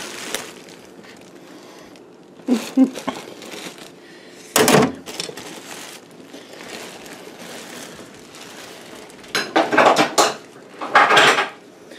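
Handling noises in a cramped under-sink cabinet: a few clattering knocks, one sharp knock about four and a half seconds in, and rustling of plastic sheeting, with quieter scraping between.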